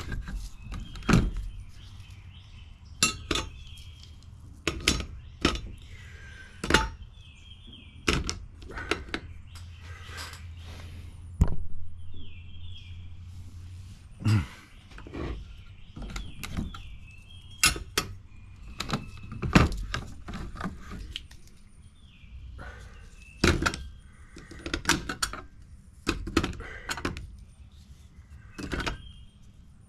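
Reloaded plastic shotgun shells being set one by one into a plastic 25-shell holder: a string of irregular clicks and knocks, roughly one or two a second, some louder than others.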